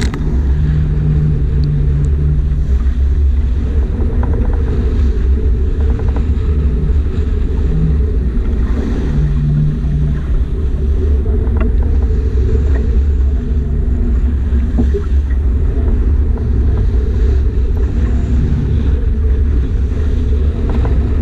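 Strong wind and sea aboard a sailboat under way in heavy weather: a loud, steady, deep rumble of wind on the microphone and water against the hull.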